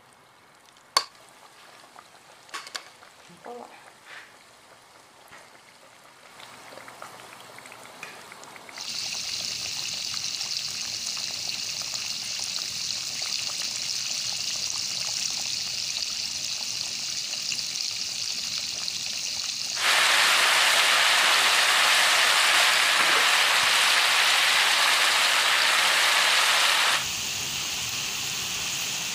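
Flour-coated chicken pieces deep-frying in hot oil: a steady sizzling hiss, with a few sharp clicks of metal tongs in the first seconds. The sizzle comes in strongly about nine seconds in and grows much louder for several seconds past the middle, then drops back.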